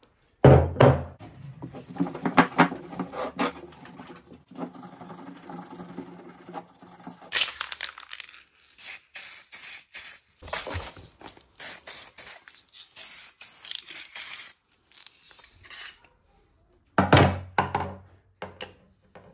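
Aerosol spray paint can hissing in a run of short bursts, spraying the cast Tama counterweight black. Before it come several seconds of knocks and a steady hum, and near the end a few knocks of parts being handled.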